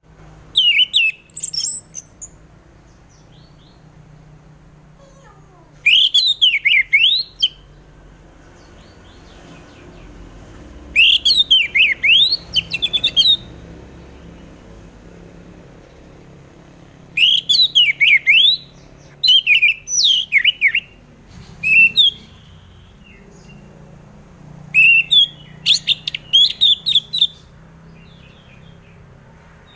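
Orange-headed thrush (anis merah) singing. It gives loud phrases of fast, sweeping high notes, each one to two seconds long, with pauses of a few seconds between them.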